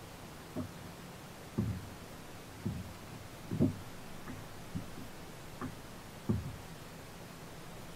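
Soft, short thumps on a sit-on-top fishing kayak, about one a second at uneven spacing, over a faint steady hiss.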